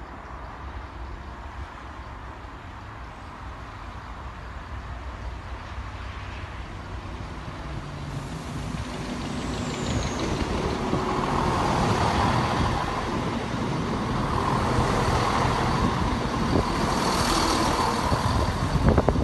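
Northern Class 170 Turbostar diesel multiple unit approaching and passing close by, its underfloor diesel engines running over the noise of wheels on rail. It grows steadily louder over the first ten seconds or so and stays loud as the carriages go by.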